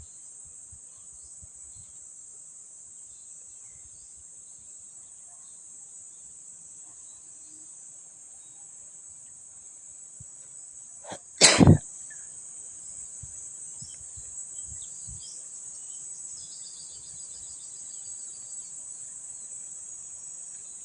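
Steady high-pitched chorus of crickets or other insects, with a single loud, sharp burst of about half a second about halfway through.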